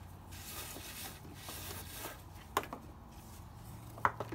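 Rope being pulled and wrapped around two crossed wooden staves while tightening a square lashing: soft rustling swishes as the rope slides, with two sharp clicks or knocks, about two and a half and four seconds in, the second louder.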